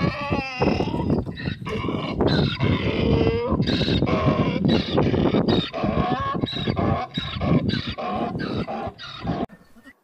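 Donkey braying: a long run of loud, repeated hee-haw calls that stops shortly before the end.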